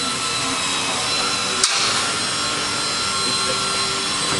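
Small electric motor and propeller of a foam indoor RC airplane hovering nose-up, a steady machine whine. A single sharp click about one and a half seconds in.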